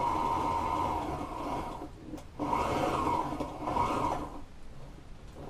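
Industrial sewing machine stitching piping onto a vinyl cushion top plate, its motor running with a steady pitch in stretches. It runs for about two seconds and stops, then starts again with a brief pause, and stops a little past four seconds in.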